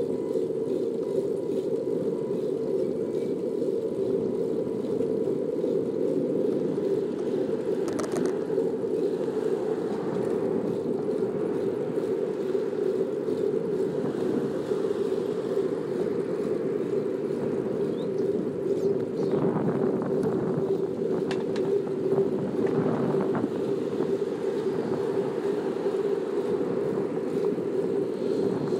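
Steady riding noise of a bicycle rolling along a smooth asphalt bike path beside a city road, with car traffic on the road swelling louder a few times about two-thirds in. A brief click about eight seconds in.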